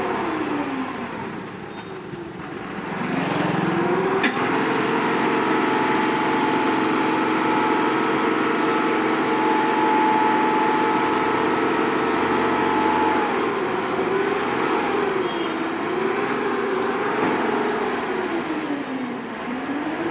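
Heavy tipper truck's engine running: about four seconds in, after a click, the revs rise and hold at a steady high pitch for several seconds, then rise and fall repeatedly.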